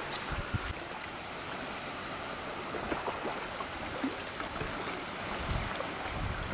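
Small sea waves lapping onto a pebbly shore, making a steady wash of water noise, with a few brief low rumbles.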